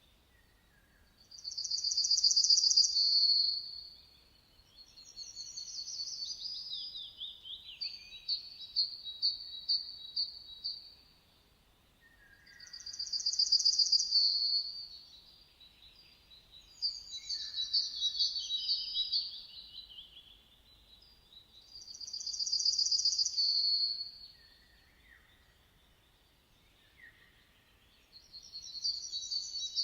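Songbirds singing: a loud, rapid trilled phrase repeats about every ten seconds, with quieter chirps and descending slurred notes in between.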